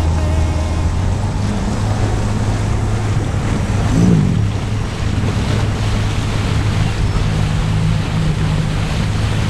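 Motorboat underway: the engine hums steadily under wind noise on the microphone and water rushing past. There is a brief louder swell about four seconds in.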